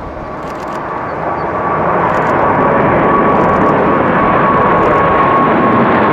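Boeing 777F freighter's twin GE90 turbofans at takeoff thrust as it climbs away just after liftoff. A loud jet roar builds over the first two seconds and then holds steady, with a high whine running through it that slowly drops in pitch.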